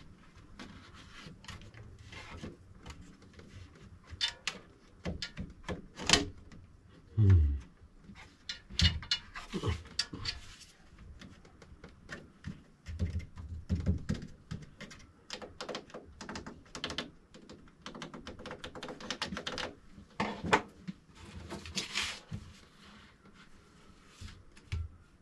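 Hands unpacking and handling a 3D printer and its parts: an irregular run of clicks, taps and knocks. About seven seconds in comes the loudest sound, a short one that falls in pitch.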